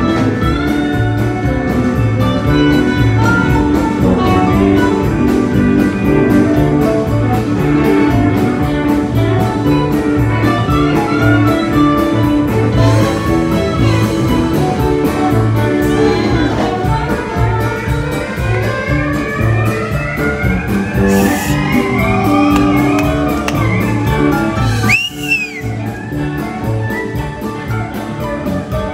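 Live country-rock band playing an instrumental passage on electric guitars, fiddle, drum kit and pedal steel guitar over a steady beat. Long rising slides run through the middle, and a short sudden dip in the sound comes near the end.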